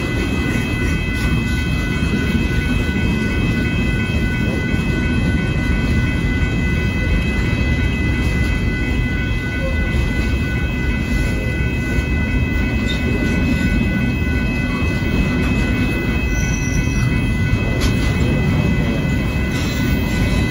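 Union Pacific intermodal freight cars rolling past a grade crossing: a steady, loud rumble of steel wheels on the rails, with a steady high-pitched ringing held over it.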